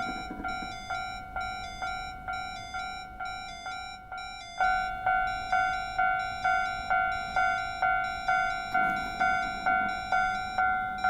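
Japanese railway level-crossing warning bell sounding its "kan-kan", about two even, ringing strikes a second. About four and a half seconds in, a louder crossing bell with a crisper strike takes over at the same pace.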